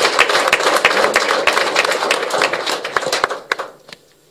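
Applause from a roomful of people: dense, fast hand clapping that thins out and stops near the end.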